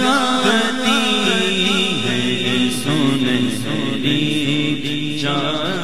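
A male voice singing an Urdu naat, drawn-out wavering phrases with vibrato, over a steady low drone.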